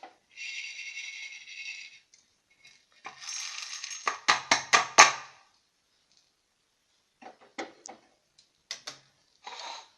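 Roasted peppercorns and poppy seeds poured into a mixer-grinder jar, a rattling rush of small hard seeds. About four seconds in comes a quick run of loud metallic knocks, with lighter clicks later and a short rattle near the end.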